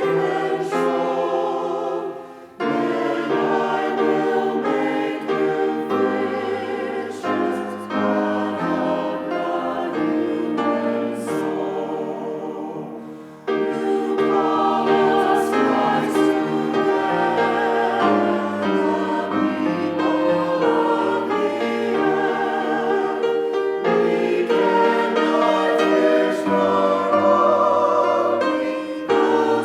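Choir singing sustained phrases in several voices with vibrato, breaking briefly between phrases twice, once a couple of seconds in and again about halfway through.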